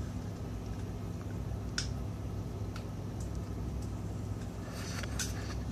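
Steady low hum of a running household appliance, with a sharp click about two seconds in and a cluster of faint clicks and crackles near the end as crab shells are picked apart and eaten.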